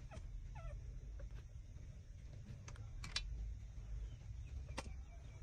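Newborn puppies suckling at their mother's teats: scattered wet sucking clicks, with one short falling squeak from a puppy about half a second in, over a low steady rumble.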